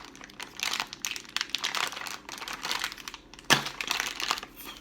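Plastic snack wrapper crinkling as hands struggle to pull the packet open, with one sharp, louder crackle about three and a half seconds in.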